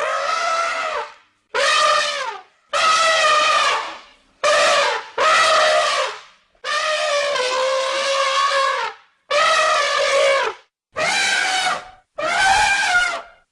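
Elephant trumpeting: a rapid series of about nine loud calls, each half a second to two seconds long with short breaks between. Most hold a steady pitch, and several drop in pitch at the end.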